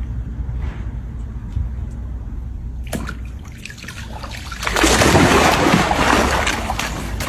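Water splashing and sloshing, starting about three seconds in and growing louder near five seconds, over a steady low rumble.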